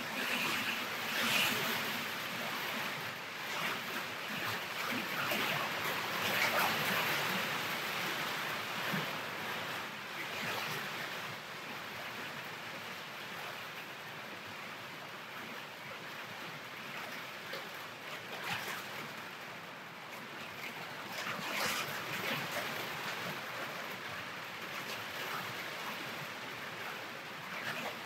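Stormy weather outside: a steady rush of rain and wind, swelling over the first ten seconds or so and then easing a little.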